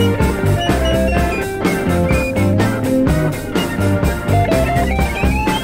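Background rock music with a steady drum beat, bass and guitar, a rising guitar note near the end.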